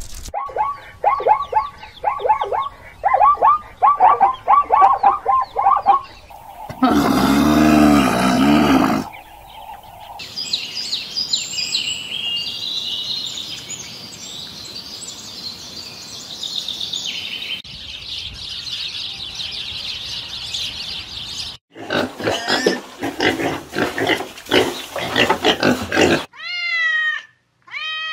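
A string of different animal calls, one after another. First comes a run of rapid yelping barks from zebras, then a loud low call, then high chirping and a steady high hiss. Near the end a cat meows several times.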